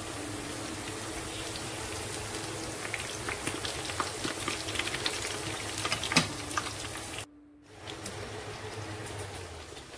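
Eggplant slices shallow-frying in hot oil in a pan: a steady sizzle with crackles and pops that grow busier in the middle. The sound cuts out briefly about seven seconds in.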